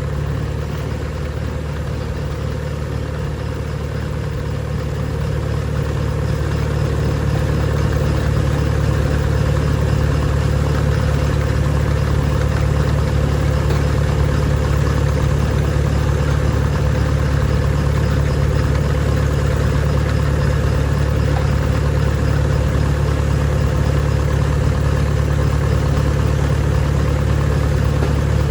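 Feed grinding machinery running with a steady, low mechanical drone while grinding chicken and quail feed. It grows louder over the first several seconds, then holds steady.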